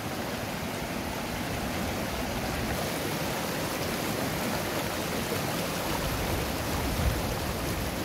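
Small mountain river running over rocks: a steady rush of flowing water.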